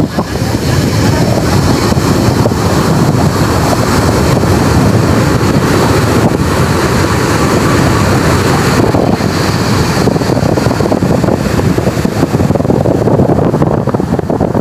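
Wind buffeting the microphone, loud and steady, over the wash of waves breaking on the beach.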